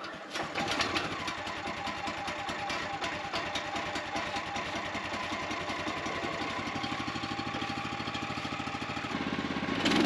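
The gas engine of a Woodland Mills HM126 portable band sawmill starts up about half a second in and runs with a steady rapid firing beat. Near the end its pitch and level rise as it is throttled up.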